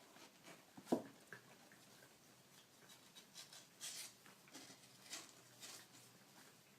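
Faint scratching and pattering of small kittens moving about, claws and paws on a surface, with a sharper knock about a second in.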